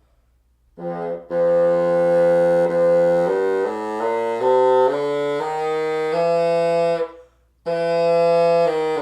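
Bassoon played to test a reed: a short note about a second in, then a line of held notes changing pitch step by step, with a brief breath pause about seven seconds in before it goes on. The reed is easier to play but still plays pretty flat.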